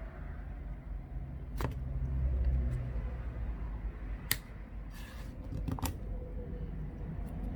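A plastic guitar pick prying around the edge of a tablet's snap-fit back cover, with about four sharp clicks as the cover's clips pop loose, over a low rumble that swells about two seconds in.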